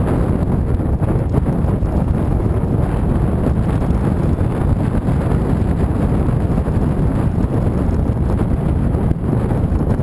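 Wind rushing over the microphone of a camera on a moving motorcycle: a loud, steady low rumble of wind noise mixed with road and vehicle noise.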